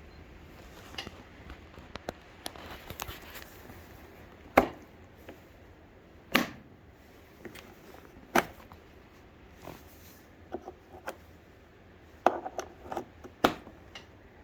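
A series of sharp clicks and knocks: about five loud ones a second or two apart, with lighter taps between, and no motor running.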